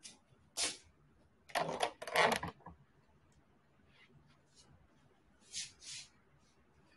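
A few brief rustles and knocks, the loudest cluster about one and a half to two and a half seconds in and two shorter hissy ones near the end: handling noise on the recording phone.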